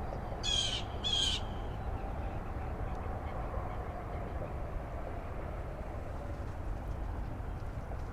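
A bird gives two short calls, each under half a second, about half a second and a second in, over a steady low background rumble.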